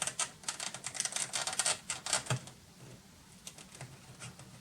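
Wooden dowel rod pushing a cardboard disc down inside a cardboard tube: a quick run of small clicks and scrapes that thins out after about two seconds into a few scattered ticks.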